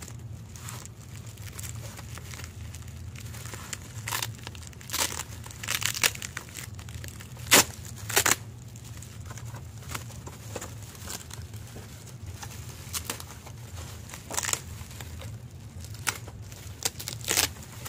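Bubble wrap crinkling and crackling as it is handled and pulled open, with sticky tape being peeled off it. Irregular sharp crackles come and go, the loudest a little before halfway, over a steady low hum.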